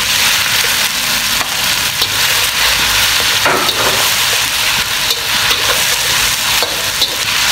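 Chicken pieces sizzling steadily in hot oil in a wok as they are browned, while a spatula stirs and scrapes them against the pan, with a few brief scrapes standing out.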